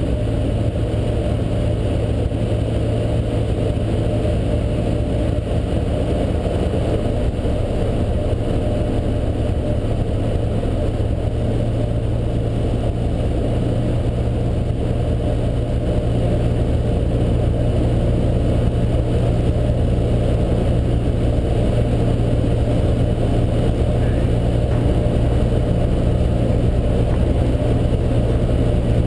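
Cessna 152's four-cylinder piston engine and propeller droning steadily in flight, heard inside the cabin, getting slightly louder about halfway through.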